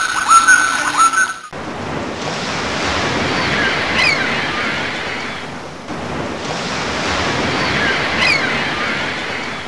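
Ocean waves surging in and washing back twice, each swell rising and falling over about four seconds, with a short falling high-pitched call near the top of each. At the start, a repeated high-pitched animal call continues for about a second and a half, then cuts off suddenly.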